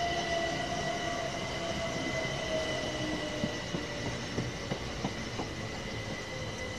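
Electric multiple-unit passenger train running through a station. It makes a steady high whine and a lower whine that slowly falls in pitch, over a rumble of wheels. A few sharp clicks from wheels crossing rail joints come about 3 to 5 seconds in.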